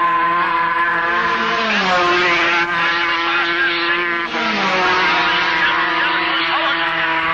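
Racing motorcycle engines running at high revs, several at once. About two seconds in and again around four and a half seconds in, an engine's pitch sweeps down as a bike passes close by.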